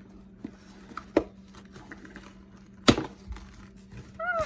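Sharp clicks and knocks of a knife and cardboard packaging being handled while a box is cut open, the loudest knock about three seconds in. A short pitched sound comes near the end.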